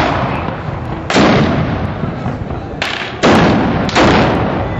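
Black-powder rifles firing blank powder charges: three loud blasts and a smaller crack, each dying away over about a second.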